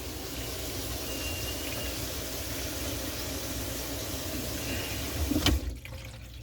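Tap water running steadily into a kitchen sink and down the drain through a newly installed, unpowered garbage disposal during a leak test. A single knock sounds about five and a half seconds in, and the running sound is quieter after it.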